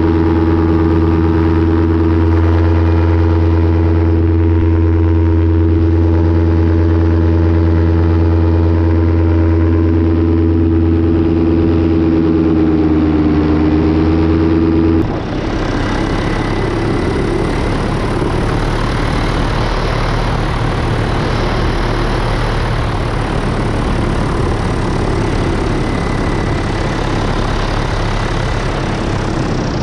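Paramotor engine running at a steady speed. About halfway through the sound changes abruptly to a rougher, noisier rush with the engine's low hum still under it.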